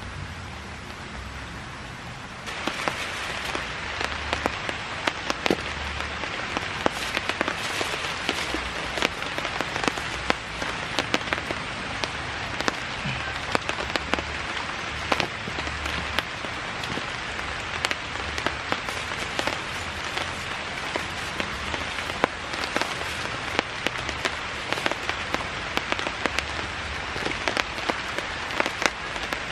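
Heavy rain falling, a steady hiss dotted with many sharp, separate drop hits; it gets suddenly louder about two and a half seconds in.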